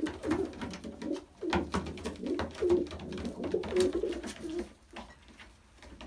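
Racing pigeons cooing in the loft, mixed with sharp slaps and scuffles as two of them fight. The sounds die down after about four and a half seconds.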